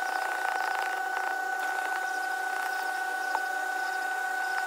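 A steady high-pitched whine runs throughout, with light clicks and scratches, busiest in the first second, from a single-edge razor blade being handled and scraped on windshield glass to lift off cured windshield-repair resin.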